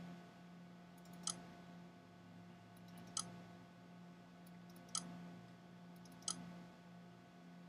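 Computer mouse clicking four times, a second or two apart, to open folders, over a faint steady hum.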